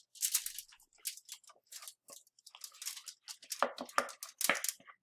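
Thick fudge full of chopped nuts scraped out of a saucepan into a foil-lined pan: irregular crunchy, squelchy scraping that grows denser and louder in the second half.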